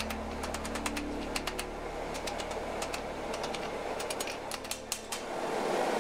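Hand hammer striking a red-hot steel knife blade on an anvil: quick, light, uneven blows, two or three a second, over a steady low machine hum that fades near the end.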